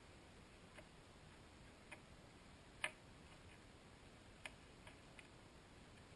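Near silence broken by about six faint, sharp clicks at uneven intervals, the loudest about three seconds in: small parts and tools being handled during work in a car's engine bay.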